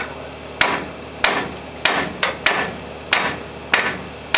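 A hammer striking the steel steering knuckle of a Chevy 10-bolt front axle at the tie-rod end, to knock the tie rod loose. It lands about nine blows, roughly one every half second, each a sharp strike with a short ring.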